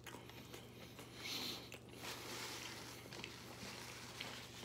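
Faint chewing of a mouthful of burrito with the mouth closed: soft, irregular mouth noises and small clicks.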